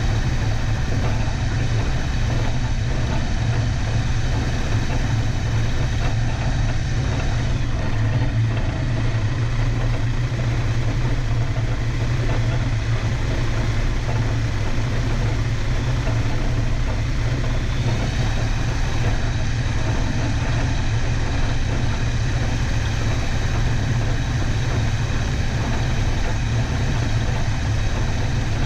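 An Aeroprakt A22 light aircraft's engine and propeller running steadily at low power while it taxis on grass, a steady low drone.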